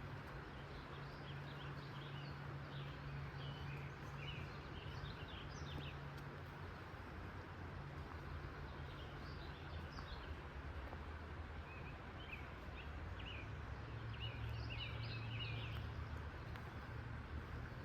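A small bird singing in quick chirping phrases, three bouts of a few seconds each, over a steady background rush and a low hum.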